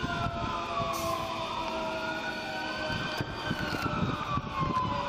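Emergency vehicle sirens wailing, slow rising and falling sweeps, more than one overlapping.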